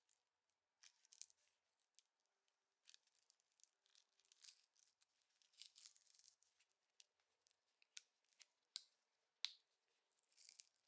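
Near silence with faint, scattered clicks and short rustles of hand work on small parts, a few sharper ticks near the end.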